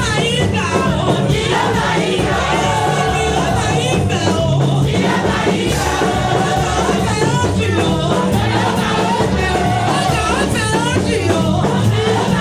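Gospel choir singing with band backing: a steady bass line and drums under the voices.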